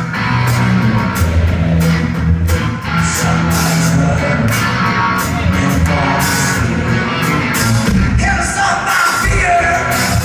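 A live rock band playing loud and full: drum kit, electric guitars and bass, with a male lead vocal. Heard from the audience in a concert hall.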